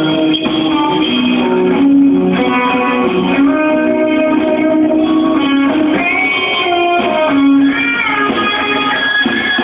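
Guitar-led band music played live, with strummed and sustained electric guitar over a steady accompaniment.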